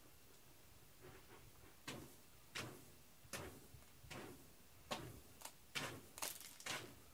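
A cat scratching in the litter of a litter box: about ten short, faint, gritty scrapes at an uneven pace.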